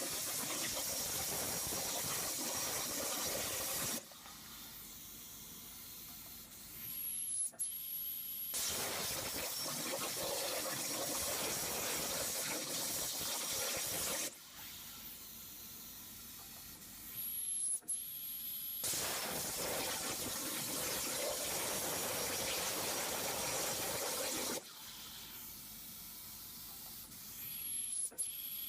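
Hypertherm plasma cutting torch running at 300 amps on a CNC table: three cuts of about five to six seconds, each a loud, steady hiss that stops abruptly. Between cuts a quieter air hiss swells and ends in a sharp click, and the cut restarts about a second later.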